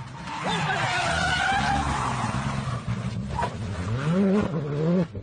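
Rally car sliding through a corner with a loud rush of skidding tyres while throwing up dust from the verge. Near the end its engine revs rise and fall several times.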